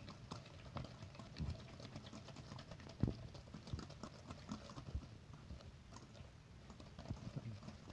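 Wire whisk clicking and scraping against a stainless steel mixing bowl as butter and sugar are creamed by hand: faint, quick, irregular taps, with a louder knock about three seconds in.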